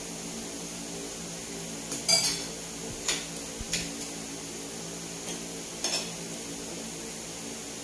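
Cutlery clinking against a plate at a meal: about half a dozen short, sharp clinks at irregular intervals over a steady low hum.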